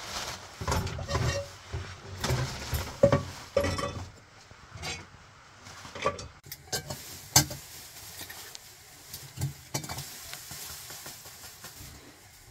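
Dishes, a pan and cutlery clinking and clattering as they are set into a dishwasher's wire racks. It is busy in the first four seconds, then thins to scattered sharp clinks.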